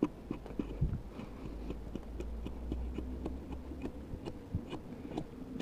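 Quiet handling noise: scattered light clicks and small knocks from a hand-held camera and a small axe being shifted against a tree trunk, over a faint low rumble.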